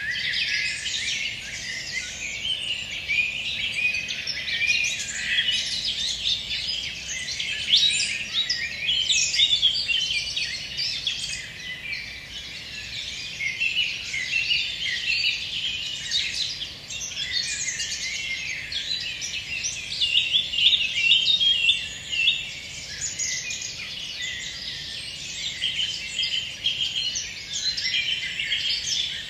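Dense chorus of many songbirds singing at once, with overlapping high chirps and trills that never pause.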